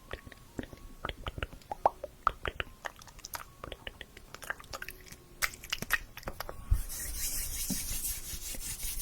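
Close-miked ASMR mouth sounds: irregular wet clicks and smacks, several a second. From about seven seconds in a steady airy hiss joins them.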